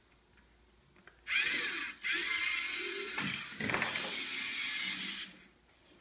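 LEGO Mindstorms NXT robot's servo motors whirring as the robot drives, starting about a second in, breaking off briefly near two seconds, then running on with a shifting whine until about five seconds in.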